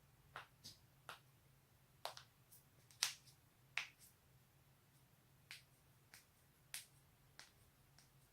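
Joints being cracked, a series of sharp pops: about a dozen, spaced irregularly, the loudest about three seconds in, over a faint low hum.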